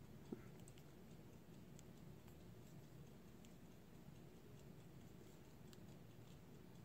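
Near silence: faint room tone with a few scattered light clicks, the sharpest about a third of a second in.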